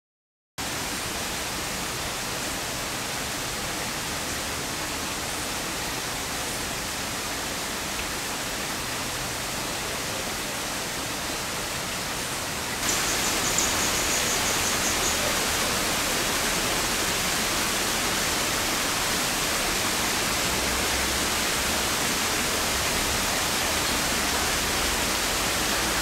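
Steady rush of running water from a small waterfall, getting louder and brighter about halfway through.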